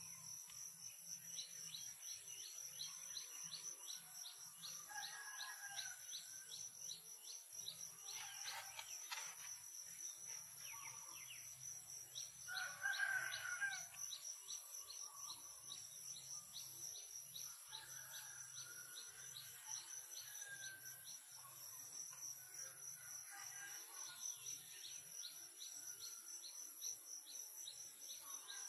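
Faint outdoor ambience of insects buzzing steadily at a high pitch, with a regular pulsing chirp, and birds calling now and then, one call louder about 13 seconds in.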